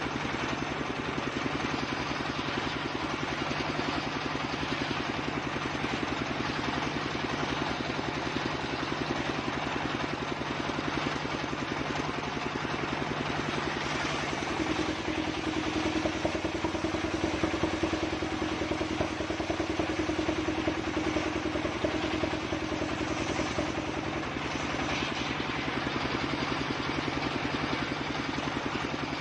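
Engine-driven circular saw rig running steadily. About halfway through, its note changes and a steadier hum comes in for around ten seconds, a little louder, before it settles back.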